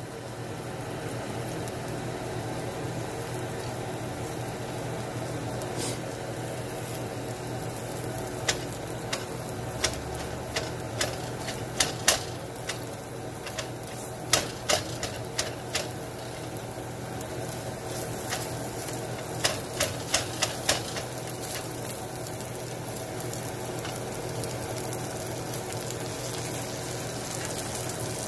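Sausages, eggs and fried potatoes sizzling steadily in a nonstick frying pan. Through the middle stretch a spatula scrapes and taps against the pan in a scatter of sharp clicks.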